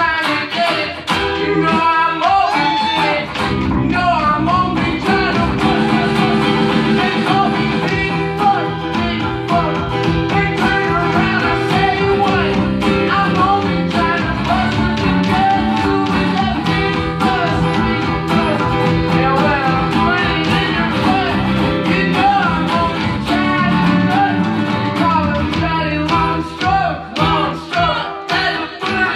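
Live band music: a man singing over a strummed acoustic-electric guitar, with bass underneath; the low end fills out about three seconds in.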